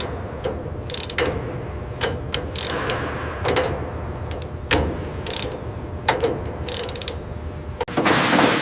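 Machinery clanking and ratcheting over a steady low hum, with irregular sharp clicks and a burst of hiss near the end.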